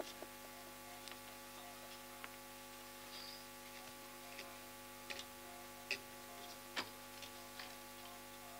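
Faint steady electrical hum from a microphone and sound system, broken by about half a dozen small, scattered clicks and knocks.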